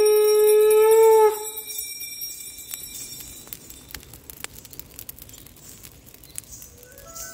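A conch shell (shankh) blown in one long, steady note that rises slightly in pitch and stops suddenly about a second in. After it come faint scattered crackles from a burning bonfire.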